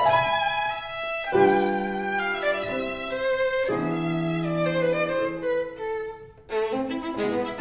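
Instrumental background music with long held notes and a melody over them. It drops away briefly about six seconds in and comes straight back.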